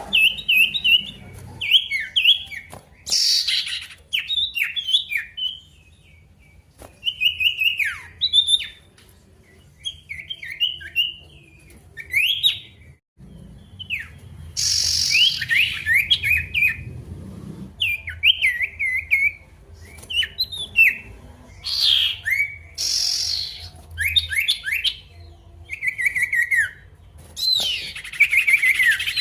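A male sirtu songbird singing energetically in quick phrases of sharp, falling chirps, with short pauses between phrases and a few louder harsh, noisy notes.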